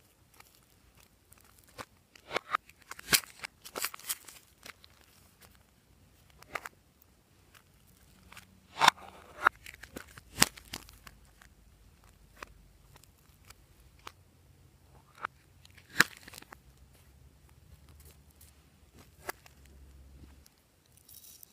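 Hard plastic cupcake-shaped slime containers being handled, pressed and lifted off a glass plate: scattered sharp plastic clicks and taps, loudest about nine, ten and sixteen seconds in.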